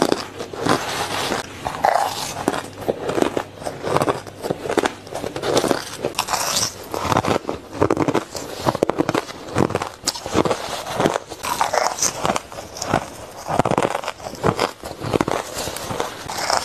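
Shaved ice being bitten and chewed close to the microphone: a continuous run of irregular crunches, several a second, with no pause.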